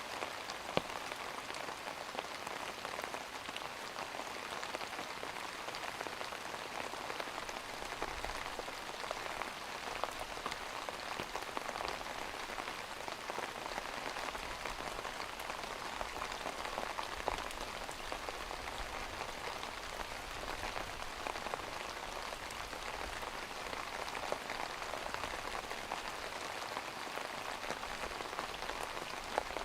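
Steady rain falling, an even hiss dotted with many small drop clicks.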